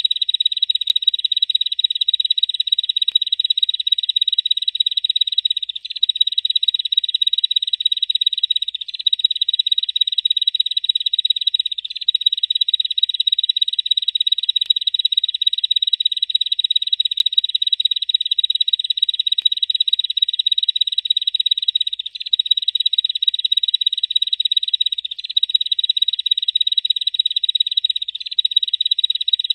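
Bar-winged prinia (ciblek) giving its 'ngebren' call: a long, continuous, rapid high-pitched buzzing trill, broken only by a few very brief pauses.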